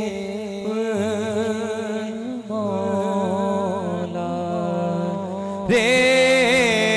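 A man's voice singing a devotional manqabat through a microphone, in long held, wavering notes over a steady low drone. The voice grows louder about three quarters of the way through.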